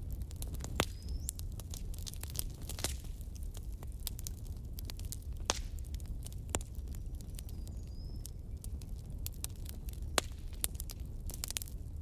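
Wood fire burning in a fireplace: a steady low rumble of flames with irregular sharp crackles and pops, a handful of louder pops standing out.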